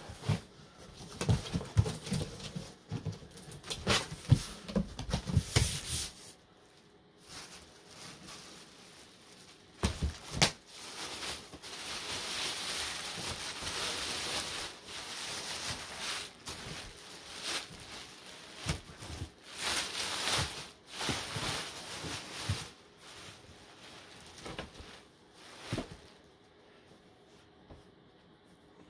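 Rustling and crinkling of the plastic bag and foam sheet wrapped around a telescope tube as it is handled, with thumps and knocks of cardboard in the first few seconds and one sharp knock about ten seconds in.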